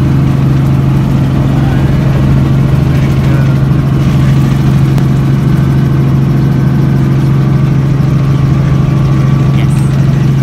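Helicopter's engine and rotor running steadily, heard from inside the cabin as a loud, even low drone while the helicopter flies low over the airfield.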